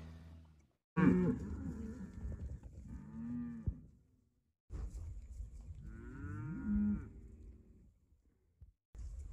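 Cattle mooing: about three drawn-out moos in short bursts, with brief dead silences between them.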